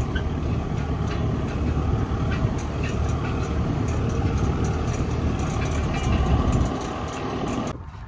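Farm tractor running steadily while pulling a plastic mulch layer along a bed, with scattered clicks and rattles over the engine; the sound drops away abruptly just before the end.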